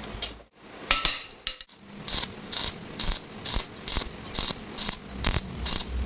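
Rhythmic mechanical clicking, about two clicks a second, settling into an even beat about two seconds in.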